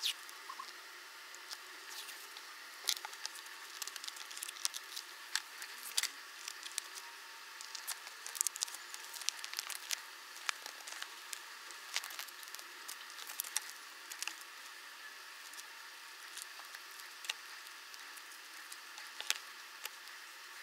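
Stickers being peeled off their backing paper and handled, making faint, irregular small crackles and ticks.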